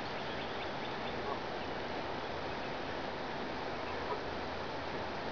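A few faint, short quacking calls from waterfowl on the water, one about a second in and another near four seconds, over a steady rushing noise.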